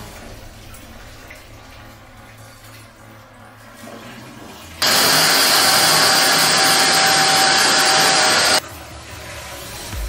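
Wet/dry vacuum cleaner motor switched on a little under five seconds in, running steadily for about four seconds and cutting off abruptly.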